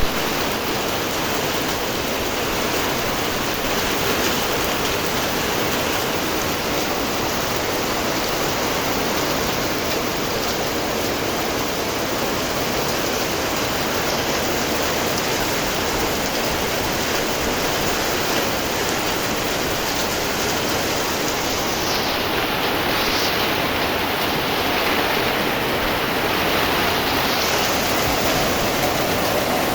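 Rain falling steadily, a dense even hiss with no let-up.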